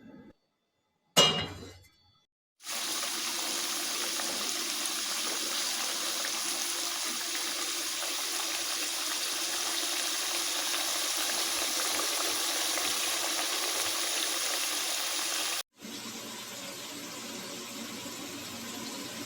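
Slices of potato, eggplant and tomato frying in hot oil in a pan: a steady sizzle. A short sharp knock comes about a second in, before the sizzle starts. The sizzle cuts off suddenly near the end and comes back quieter.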